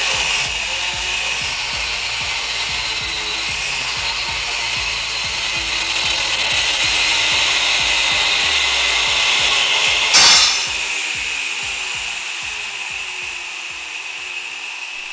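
Angle grinder with a cutoff wheel cutting through a steel coil spring on a strut, a steady high grinding whine. About ten seconds in there is a sudden loud snap as the spring lets go, and the grinding then goes on more quietly.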